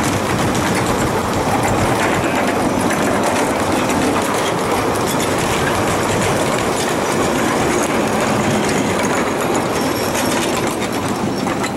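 Ride-on scale model train running along the track, with a steady loud rumble and many fine wheel clicks over the rail joints.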